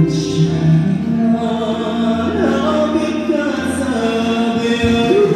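A man singing through a microphone and PA speakers, holding long notes with a wavering pitch over music accompaniment.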